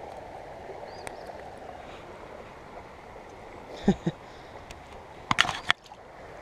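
Steady rush of flowing river water over rocks. A low knock comes about four seconds in, then a few sharp clicks a little after five seconds.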